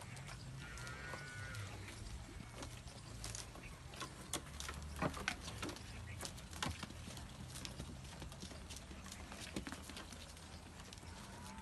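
Goat kids feeding at a fodder manger: irregular snaps, rustles and clicks as green stalks are pulled and chewed, with occasional hoof knocks on the hard floor. The loudest clicks come about five seconds in, over a steady low rumble.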